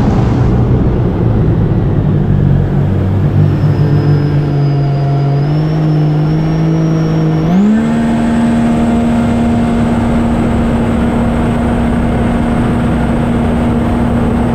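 Sea-Doo jet ski's Rotax engine at full throttle. More than one engine note sounds at once at first; about halfway through, the pitch rises quickly and then holds steady and high as the craft runs at its top speed of about 96 mph.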